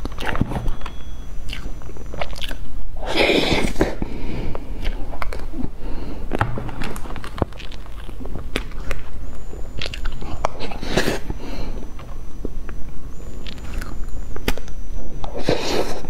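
Close-up mouth sounds of eating soft cream sponge cake: wet chewing and smacking with many small sharp clicks, and a few louder noisy swells about three seconds in, around eleven seconds and near the end.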